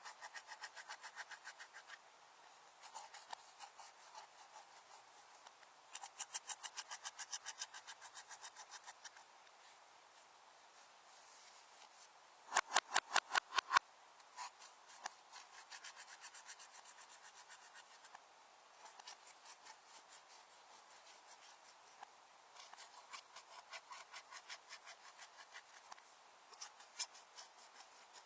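Slime being kneaded and squished by hand, making runs of quick sticky clicks, about four or five a second, with a louder run about halfway through.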